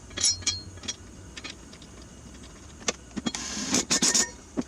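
Scattered clicks and knocks of metal mower parts being handled, with a short scraping rustle about three and a half seconds in.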